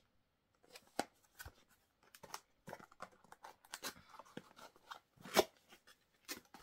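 Small cardboard box being opened by hand: a run of irregular scrapes, clicks and crinkles from cardboard flaps and paper, with the sharpest snap about five seconds in.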